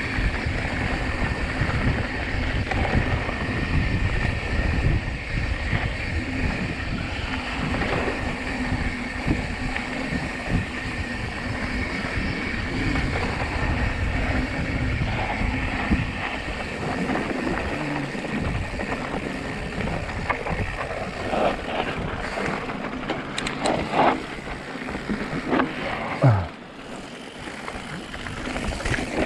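Ride noise from a mountain bike rolling along a trail: wind buffeting the microphone over a constant low rumble from the tyres and frame. There are a few sharp knocks near the end, after which the rumble eases off.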